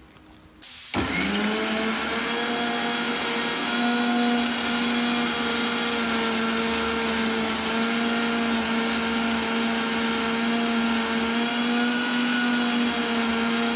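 Electric mixer grinder motor starting up about a second in and then running steadily at full speed, its small steel jar grinding chopped beetroot into a paste.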